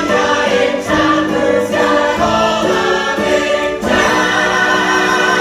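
Ensemble chorus singing with orchestral accompaniment in a lively stage-musical number. It moves in held phrases that change about a second in and again near four seconds.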